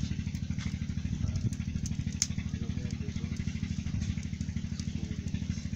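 A small engine running steadily, a rapid, even low throb, with a few faint crackles over it.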